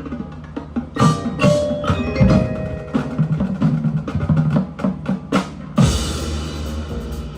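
Marching band playing, with percussion to the fore: sharp wood-block and drum strikes over sustained brass and mallet notes, swelling to a loud full-band hit about six seconds in.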